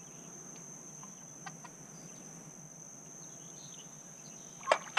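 Steady high-pitched drone of insects in the marsh grass, with a few faint ticks and one sharp knock near the end.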